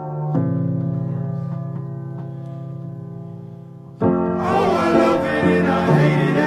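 Background music: held piano-like keyboard chords slowly fading, then about four seconds in a louder, fuller section with singing comes in.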